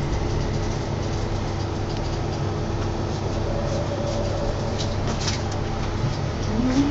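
Mitsubishi Crystal Mover rubber-tyred people mover heard from inside while moving: a steady low rumble with a constant motor hum, and a short rising whine near the end.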